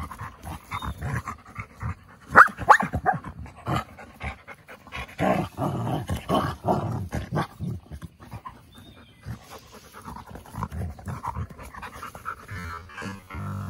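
A husky and wolf-dog pups play-wrestling: panting and short, rough vocal bursts in quick irregular succession. The noise is loudest about two and a half seconds in and again from about five to seven seconds in.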